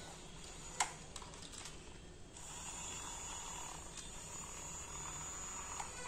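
Small electric motor of a wired toy shovel loader, driven from its remote, starting up about two seconds in and running with a steady buzzing whir. A sharp click comes shortly before, about a second in.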